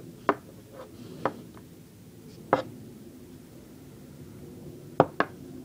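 Metallic clicks from the action of an antique double-action top-break .38 revolver being worked by hand. Sharp single clicks come about a second apart, then a quick pair near the end.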